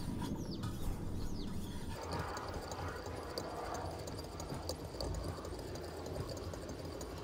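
Fine 1.4-micron stones on a Wicked Edge guided sharpener stroked along both sides of a cleaver's edge: faint, soft scraping passes at the polishing stage of the sharpening.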